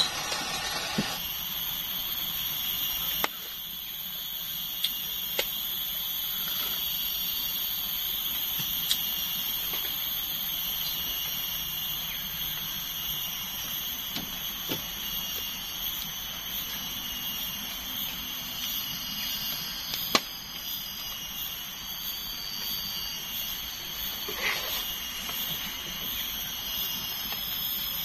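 Insect chorus of the forest, a steady high-pitched buzzing, with a few faint knocks about 3 s in and about 20 s in.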